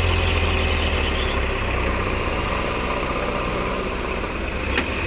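Heavy diesel engines running steadily, with a low even hum: a JCB backhoe loader's engine working as its bucket pushes a loaded tipper truck that is stuck in mud. A single short click sounds near the end.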